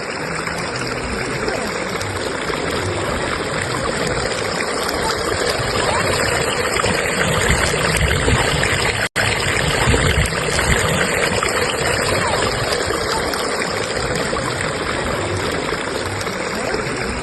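Fast-flowing stream current rushing steadily, cutting out for an instant about halfway through.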